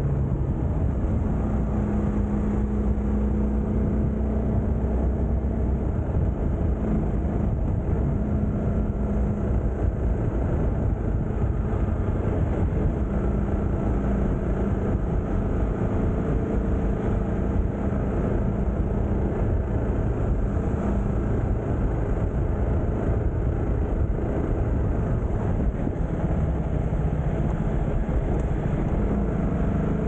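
TVS Apache RR 310 motorcycle's single-cylinder engine running at a steady cruise while being ridden, under a constant dense rush of noise. The engine's hum dips and returns a few times as the revs change a little.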